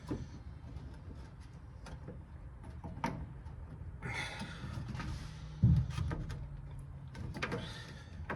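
Fan shroud being pushed down and a radiator hose worked onto its neck by hand: scattered clicks, scrapes and rubbing, with one heavier knock a little past halfway.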